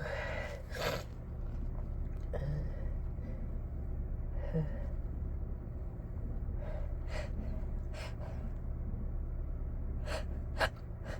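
A person's breathy gasps and sharp sniffing inhales between induced sneezes, the breathing that builds up to the next sneeze; the strongest comes about ten and a half seconds in. A steady low hum runs underneath.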